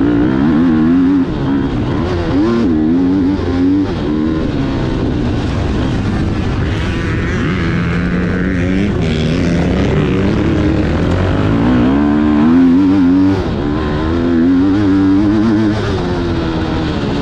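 Motocross dirt bike engine revving, its pitch rising and falling again and again as the throttle opens and closes.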